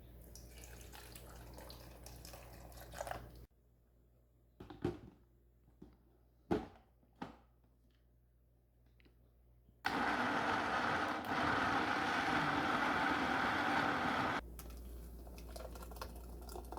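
A few light clicks and knocks, then an electric blender runs steadily for about four and a half seconds, puréeing soaked dried bellflower root (doraji) with its soaking water and chopped pear, and cuts off suddenly.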